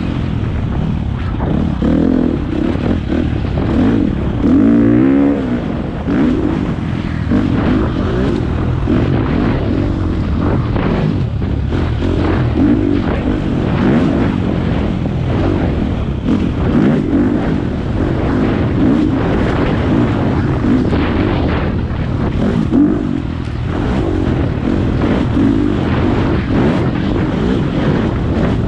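Four-stroke single-cylinder dirt bike engine under way, revving up and down constantly as the throttle opens and closes. Frequent short knocks and rattles run through it.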